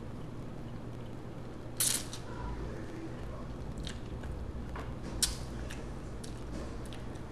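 Eating sounds from a person slurping up spaghetti and chewing it with meat sauce, with short wet smacks and clicks, the strongest about two seconds in and another about five seconds in, over a low steady hum.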